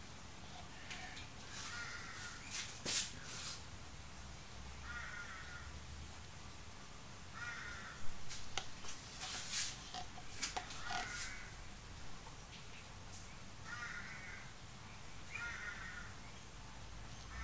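A crow cawing repeatedly, about six short calls a couple of seconds apart, with a few sharp clicks and taps around the middle.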